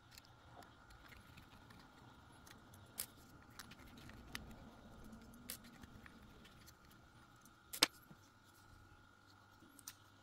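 Faint, scattered clicks and taps of a small screwdriver working screws and of hard plastic housing parts being handled, with one sharper click about three quarters of the way through.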